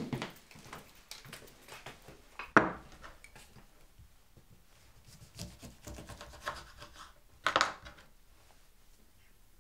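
Kitchen handling sounds: footsteps, then a sharp knock about two and a half seconds in as a glass is set down on the worktop, followed by a knife scraping and cutting a lemon on a chopping board, loudest about seven and a half seconds in.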